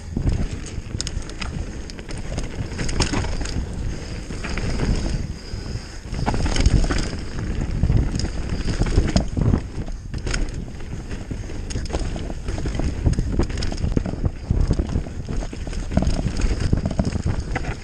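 Mountain bike descending a dry dirt trail at speed: wind rumble on the microphone, with tyre noise on dirt and frequent rattles and knocks from the bike over bumps.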